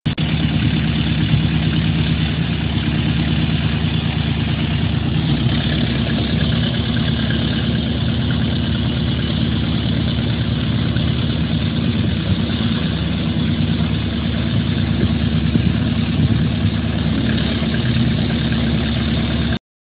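Engine of a water hyacinth cleaning boat running steadily at a constant speed. It starts abruptly and cuts off suddenly just before the end.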